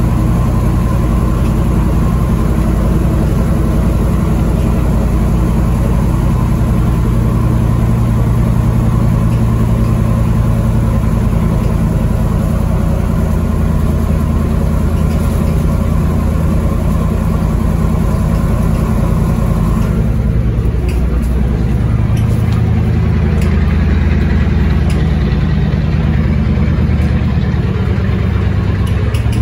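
LiAZ-677MB bus engine running steadily, with its note changing about two-thirds of the way through.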